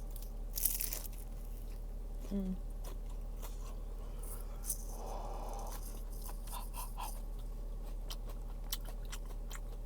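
Close-up eating sounds of a person chewing fried food, with small crunches and mouth clicks, and one louder crunch just under a second in.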